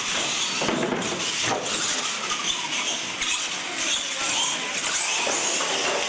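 Two R/C monster trucks racing flat out across a concrete floor: a steady, high whine of electric motors and gears mixed with tyre noise.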